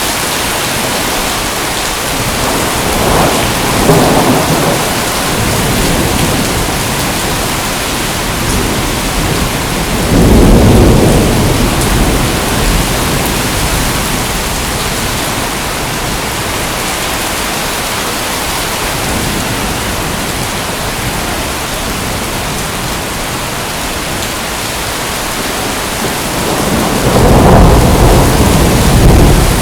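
Steady heavy rain, with thunder rumbling three times: a few seconds in, about ten seconds in, and again near the end.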